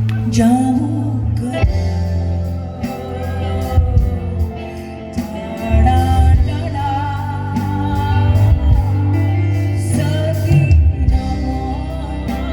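Live band music: a singer over a heavy bass line and drums.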